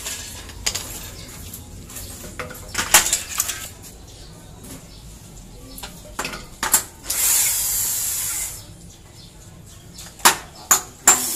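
Corded electric drill running briefly, about a second and a half just past the middle, amid scattered knocks and clicks of tools and aluminium frame parts being handled; a few sharp taps follow near the end.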